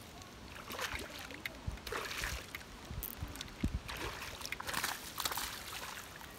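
Irregular splashing and sloshing of water as a hooked black bass thrashes at the surface while being played.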